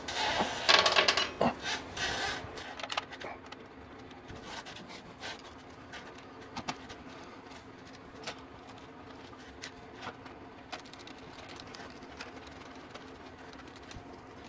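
Handling noise from a wall-mount fan's wire cage and mounting bracket being fitted up on the wall: a burst of scraping and rubbing over the first two seconds or so, then scattered light clicks and taps.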